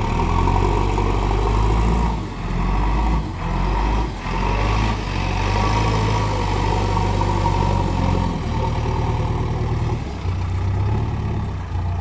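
JCB backhoe loader's diesel engine working under load, its drone easing off and picking up again several times, with short dips about two, three and four seconds in.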